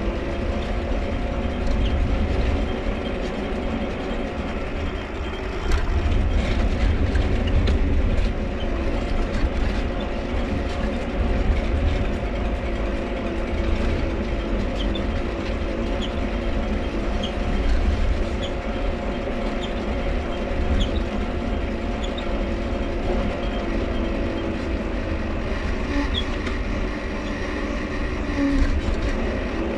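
Mifa folding bicycle being ridden, its dynamo running with a steady whine over a low rolling rumble. Short squeaks come at scattered moments from the cranks.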